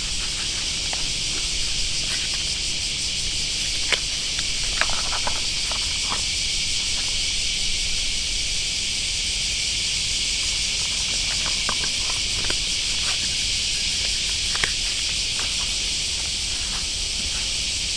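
Steady high-pitched insect chorus, with a few faint scattered clicks.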